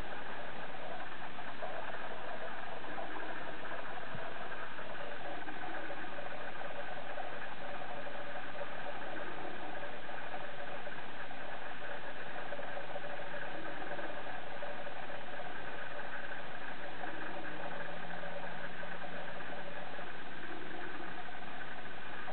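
A steady mechanical hum, even throughout, with a few faint steady tones running through it.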